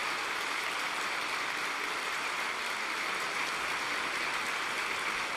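Theatre audience applauding: a steady, dense patter of many hands clapping.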